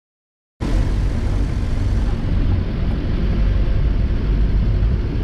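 Steady low rumble of a Daihatsu Taft 4x4 driving, with engine and road noise, cutting in abruptly about half a second in.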